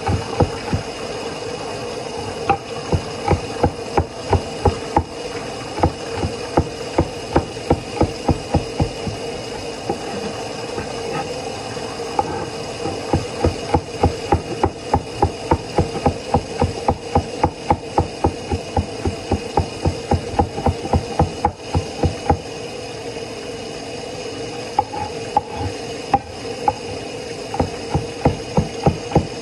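Kitchen knife chopping scallions on a wooden cutting board: quick runs of sharp knocks, several a second, broken by short pauses, over a steady hum.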